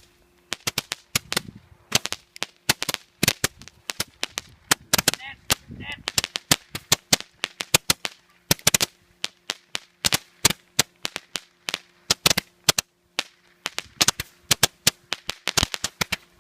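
Fireworks going off in rapid, irregular sharp bangs, several a second, with a brief lull around 13 s.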